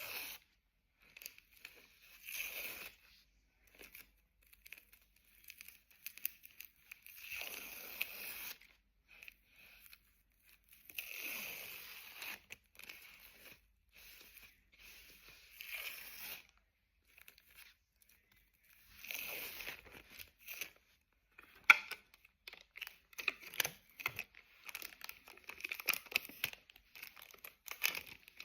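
Sticky tape being peeled away in a series of short pulls, each about a second long with pauses between them, followed in the last several seconds by rapid crinkling and crackling.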